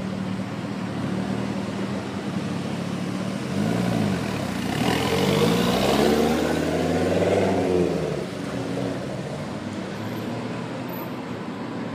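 Mk2 Ford Focus RS's turbocharged 2.5-litre five-cylinder engine idling, given a short rev about four seconds in, then pulling away from standstill with its pitch rising. The engine is loudest in the middle and fades after about eight seconds.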